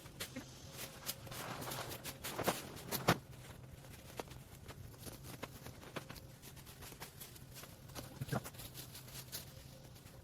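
Yard cleanup work: scattered knocks, scrapes and rustles, louder strikes about two and a half seconds, three seconds and eight seconds in, over a faint steady hum.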